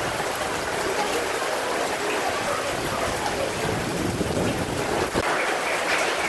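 Heavy rain pouring steadily in a windy storm, with gusts through the palm and tree canopy.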